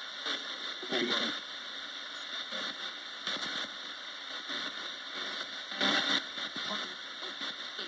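Roberts radio sweeping through stations as a spirit box: a steady hiss of static broken by brief blips of broadcast sound, about one every second or two.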